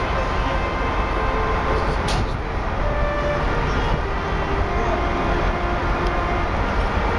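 Steady outdoor rumble, heaviest in the lows, with faint voices in the background and one short sharp click about two seconds in.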